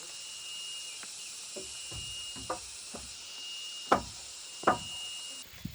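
A few irregular blows of a tool on wood, the two loudest near the end, against a steady high insect buzz.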